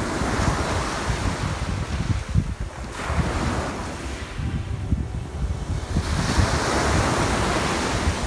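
Sea waves breaking and washing up the shore, a fresh surge of surf about every three seconds, with wind rumbling on the microphone.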